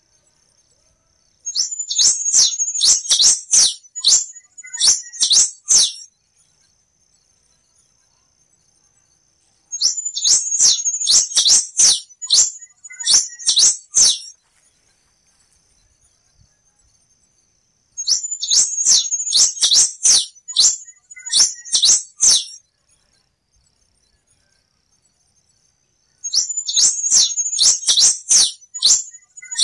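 Black-and-rufous warbling finch (quem-te-vestiu) singing: a rapid, high, chattering phrase of quick notes, lasting about four seconds and repeated four times about eight seconds apart. A faint steady high tone runs underneath.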